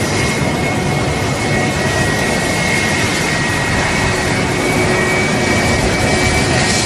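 Boeing 747's four jet engines running at high power on the takeoff roll: a steady, loud rush of noise with a high whine running through it.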